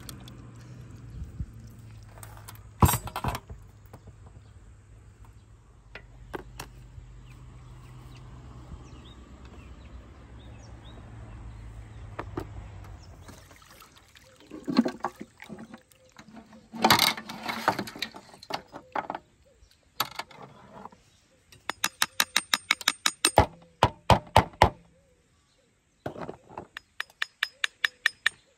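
Broth and cooked sheep's head and trotters pour from a large aluminium pot onto a metal serving tray, the metal pot knocking and clinking against the tray. Near the end come two fast, even runs of sharp clicks.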